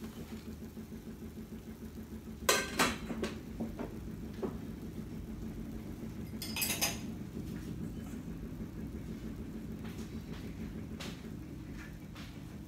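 Stainless steel cookware clinking: a couple of sharp metallic knocks about two and a half seconds in, then a few lighter taps, and a short hiss a little after the middle, over a steady low hum.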